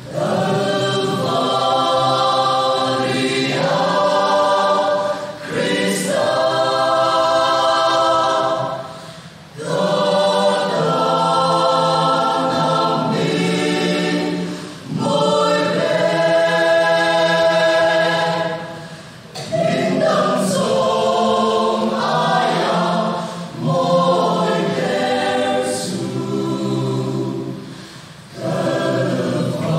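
Mixed choir of men's and women's voices singing a gospel song in long held phrases of about four to five seconds, each followed by a brief breath pause.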